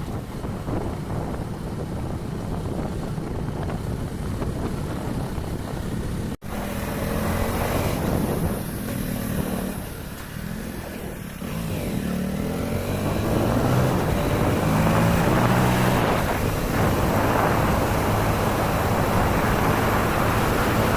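A motor vehicle on the move: wind rushing across the microphone, then, after a brief cut about six seconds in, an engine hum that rises and falls in pitch.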